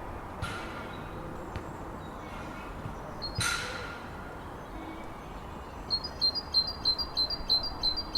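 Great tit calling and singing: two short harsh calls, then from about six seconds in a fast run of high repeated notes, about three a second.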